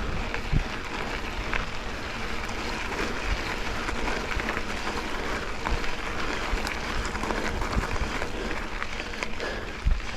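Mountain bike rolling up a gradual climb on a dirt double-track trail: a steady noise of tyres on the ground, with scattered clicks and a few knocks, the strongest near the end.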